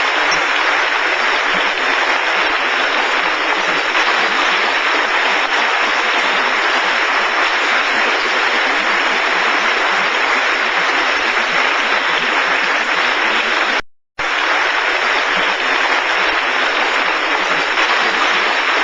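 Audience applauding steadily, a dense continuous clapping that drops out abruptly for a moment about fourteen seconds in.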